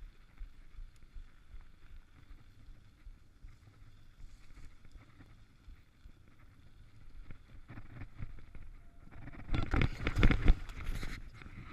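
Mountain bike tyres rolling along a gravel path, then a loud clattering crash near the end as the bike slides out on wet wooden boardwalk planks and bike and rider hit the boards.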